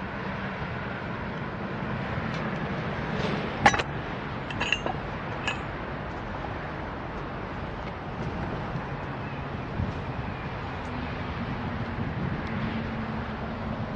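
Distant diesel freight locomotives working, a steady low rumble. About three and a half seconds in comes a sharp metallic clank with a short ring, followed by two lighter clanks over the next two seconds.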